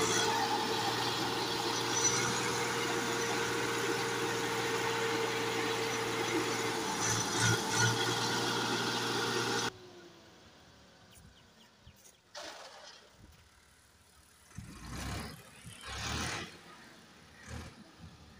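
Massey Ferguson 260 tractor's three-cylinder diesel engine running steadily. About ten seconds in it cuts off abruptly, leaving a much quieter stretch with a few brief, soft noises.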